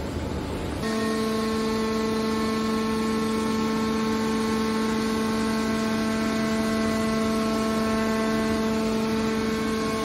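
Hydraulic power unit of a large scrap metal baler running: a steady, even hum and whine from its electric motor and pump while the press lid folds down onto the charge. Before that there is a short stretch of rougher noise.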